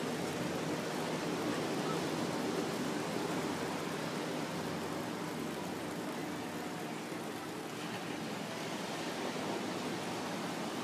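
Steady rush of ocean surf breaking along a sandy beach, an even wash of noise without distinct events.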